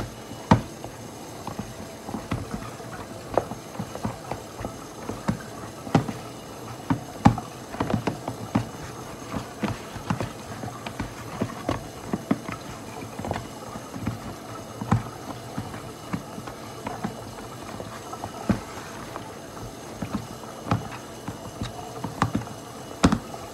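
Flour dough being kneaded by hand in a plastic bowl on a counter: irregular thumps and knocks, a few a second, as the dough is pushed and the bowl bumps about.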